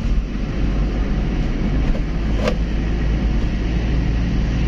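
Engine and road noise of a Honda Civic Wonder heard from inside the cabin while driving, a steady low rumble. A single short click comes about halfway through.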